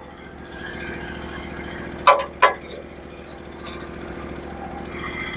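Gas engine of a Norwood HD36v2 portable bandsaw mill running steadily, with two sharp knocks about two seconds in.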